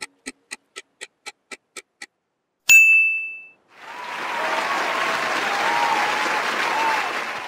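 Quiz countdown timer sound effect ticking about four times a second, stopping about two seconds in. A single bright ding follows as the correct answer is revealed, then applause that runs for about four seconds.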